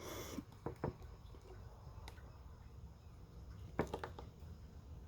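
A few faint clicks and taps of small parts being handled and tugged while pulling components out of a hard drive storage unit: several in the first second, one about two seconds in and a short cluster near four seconds, over a low steady hum.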